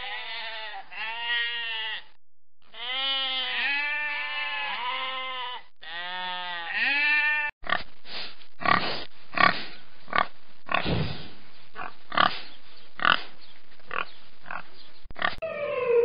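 Domestic sheep bleating, a string of wavering baas, then about halfway through pigs grunting repeatedly, short rough grunts with a few louder ones.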